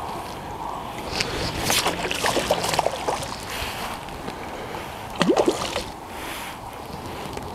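Water sloshing and splashing, with scattered light clicks and knocks and a brief rising squeak about five seconds in.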